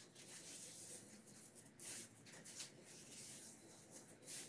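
Faint rustling and creasing of paper towel sheets being folded by hand into accordion pleats, with two slightly louder rustles, about two seconds in and near the end.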